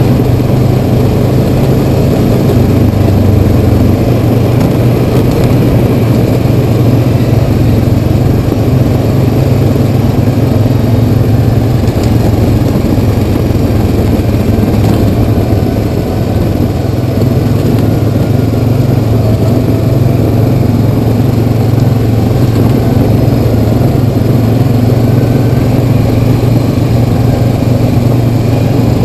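Honda Rancher 420 ATV's single-cylinder engine running steadily at cruising speed along a gravel trail.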